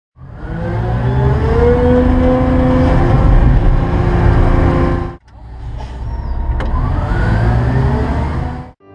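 Large diesel engine of a Michigan wheel loader revving up, its pitch rising, then running hard. The sound cuts off abruptly about five seconds in and picks up again, revving up once more.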